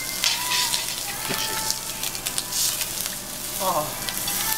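Slices of marbled beef sizzling on a hot tabletop barbecue grill plate: a steady frying hiss with fine crackles and pops of fat.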